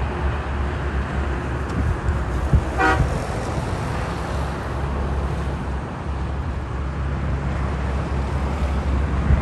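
Road traffic with the steady low engine rumble of passing heavy trucks, and one short vehicle horn toot about three seconds in.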